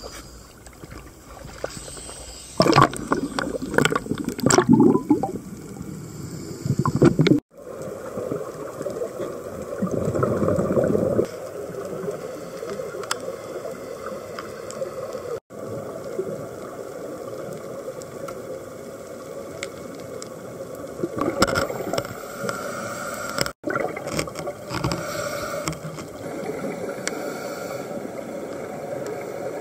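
Sea water sloshing and splashing against the camera at the surface, then muffled underwater gurgling and streams of bubbles from scuba divers' breathing. The sound breaks off abruptly three times.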